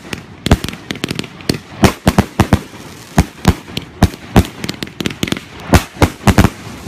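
Firework cake firing: a fast, irregular string of sharp bangs from shells launching and bursting overhead, about three a second and sometimes in quick clusters.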